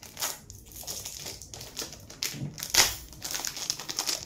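Clear plastic packaging crinkling and crackling as it is handled, in a run of short crackles, the loudest about three seconds in.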